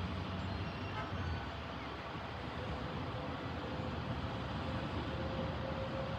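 Steady engine rumble with a continuous roar, and a single whining tone that grows louder from about halfway through.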